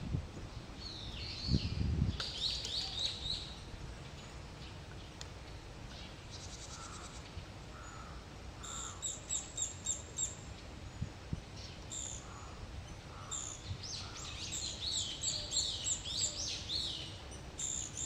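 Japanese pygmy woodpecker nestling calling from its nest hole, rapid runs of high chirps, a cluster just after the start and a longer run near the end, scattered notes between: a hungry chick begging for food. A brief low rumble comes near the start.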